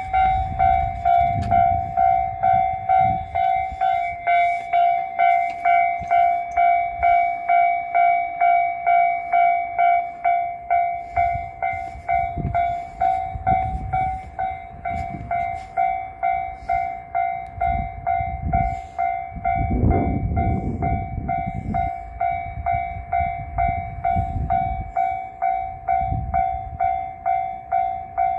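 Japanese level-crossing warning bell ringing over and over at about two dings a second, while trains pass with a low rumble that is heaviest about twenty seconds in.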